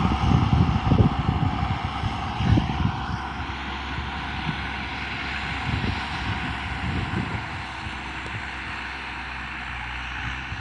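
Telehandler's diesel engine running as the machine drives away, fading slowly, with gusts of wind buffeting the microphone.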